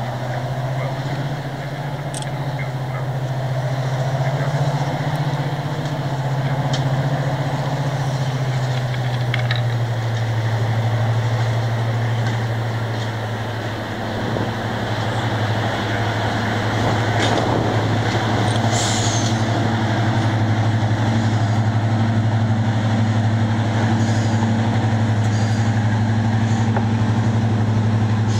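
Mainline diesel locomotive engine running as the locomotive rolls slowly into the platform: a steady low drone that drops slightly in pitch about eight seconds in, then holds. A brief hiss about eighteen seconds in.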